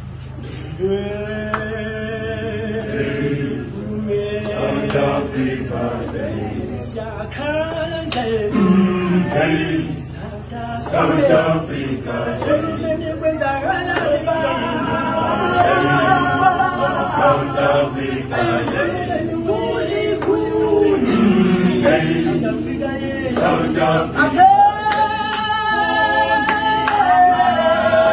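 Male choir singing a cappella in several-part harmony, getting gradually louder toward the end.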